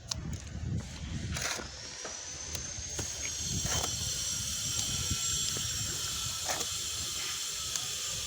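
Strong wind buffeting the microphone in low, uneven gusts. About two seconds in, a steady high-pitched whine comes in and holds underneath.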